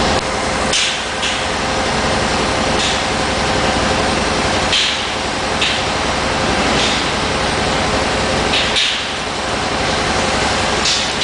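Hull-painting machinery running steadily with a constant hum, broken by short high hissing bursts every second or two, typical of engine-driven equipment and an airless spray gun being triggered on a ship's hull.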